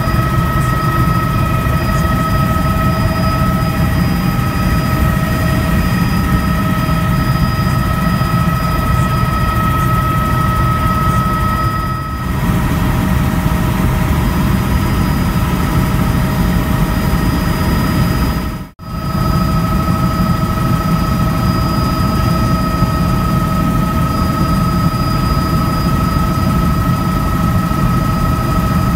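Bell 206 JetRanger helicopter heard from inside the cabin in cruise flight: a steady low rotor and engine drone under the high, even whine of its Allison 250 turboshaft. The sound briefly dips about 12 seconds in and drops out for an instant about two-thirds of the way through.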